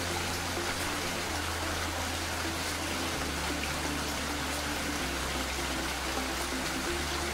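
Steady rain, an even hiss without a break. Quiet background music of long, low held notes plays under it, the notes changing every second or two.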